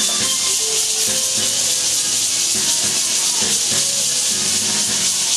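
Cicada chorus: a dense, steady, high-pitched buzzing hiss that holds at an even level throughout.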